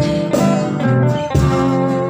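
Background music: a guitar-accompanied pop ballad between sung lines, with chords strummed or plucked about a third of a second and about a second and a half in.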